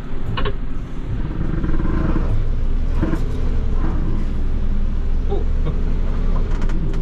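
Mercedes-Benz Unimog's diesel engine running steadily, heard inside the cab, holding the truck back on a steep descent with engine braking, with a few short knocks and rattles.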